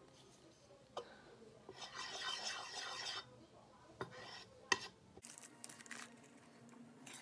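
A thin stick stirring and scraping around a plastic bowl of water and soaked crepe paper, with a few sharp taps against the bowl. A longer scratchy rub comes about two seconds in.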